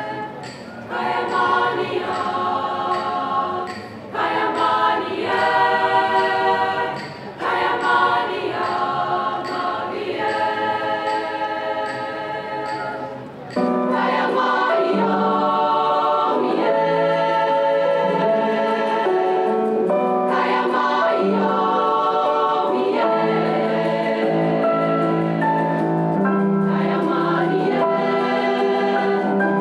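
Choir of pregnant women singing together in phrases with short breaks between them. About halfway through, the sound cuts abruptly to a steadier, unbroken passage of singing.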